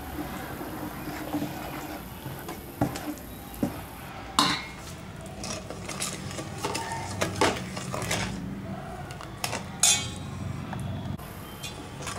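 Metal spoon and steel ladle stirring in steel vessels, scraping with several sharp clinks of metal on metal: first gram-flour batter in a bowl, then sugar being dissolved in water in a stainless steel pot.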